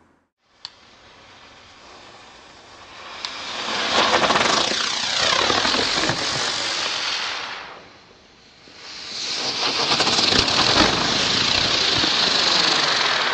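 Helicopter-type spinning firework (Lesli Night Navigator 'fire bird') whirling and hissing as it spins up and climbs, in two long runs: the first builds about three seconds in and dies away near the eighth second, the second starts about a second later. The hiss carries pitch that slides downward, and there is a short click less than a second in.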